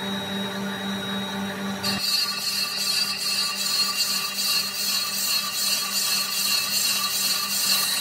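Metal lathe running with a cast iron truck brake drum spinning in its chuck, a steady machine hum. About two seconds in the sound changes abruptly and becomes louder and hissier.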